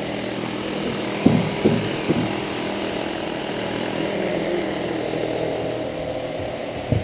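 A vehicle's motor running steadily as it drives along, with a few dull thumps about a second in and another near the end.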